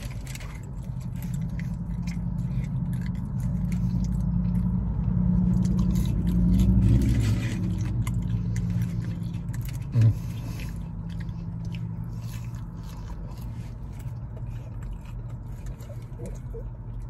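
A vehicle engine's low steady rumble, swelling for a few seconds in the middle and then dropping back, with chewing over it and a single sharp thump about ten seconds in.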